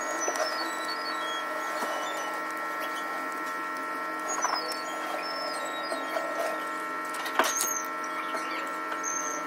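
A steady whirring machine hum, with a few light rustles and clicks of enamelled copper magnet wire being pressed by hand into the slots of an electric motor stator; the sharpest click comes near the end.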